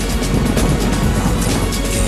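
Loud music with the dense crackling and banging of a large fireworks display over it, many bursts a second.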